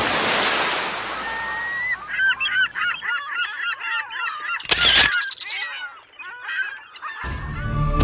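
A group of geese honking in many short, quickly repeated calls, over a noisy rush in the first few seconds, with a sudden loud burst about five seconds in. Music starts about seven seconds in.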